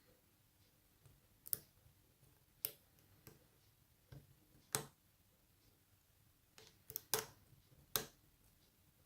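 Abus 83CS/50 padlock being single-pin picked with a homemade pick and tension tool: a series of sharp, irregular metal clicks from the pick working the pins while the core sits in a false set. Two clicks come close together about seven seconds in.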